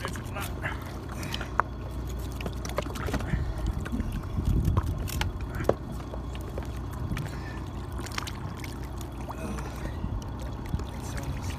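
Small boat's engine running steadily while the boat lies stopped, with water sloshing against the hull and a couple of sharp knocks.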